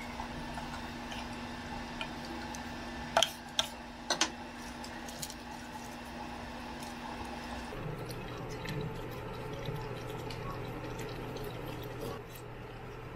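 Pork stew simmering and bubbling in a pot, with a few sharp knocks of a wooden spatula against the pot about three to four seconds in, over a low steady hum that shifts about eight seconds in.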